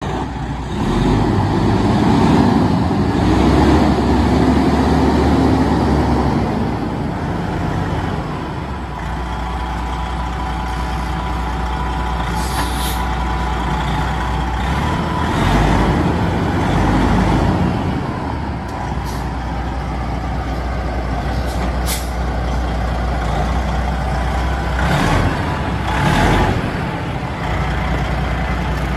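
Detroit Diesel Series 60 inline-six diesel in a Freightliner Classic 120 tractor idling steadily, with a few brief sharp hisses and clicks here and there.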